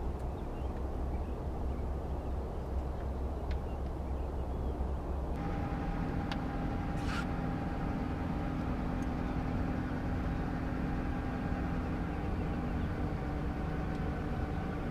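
A boat motor running steadily, with a low rumble. About five seconds in the sound changes to a steady hum with several tones in it.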